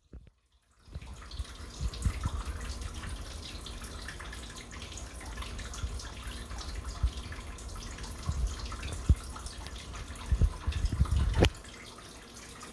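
Water dripping and trickling through a ceiling from a burst hot water heater on the floor above. Low bumps come and go, and there is a sharper knock near the end.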